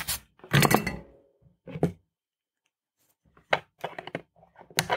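Sharp clicks and knocks of a small circuit board and tools being handled. From about three and a half seconds in come a few short, sharp snips of flush cutters cutting excess LED leads off the soldered board.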